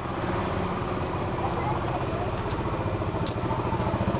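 Lorry engine idling, a steady low running sound with a fast, even beat.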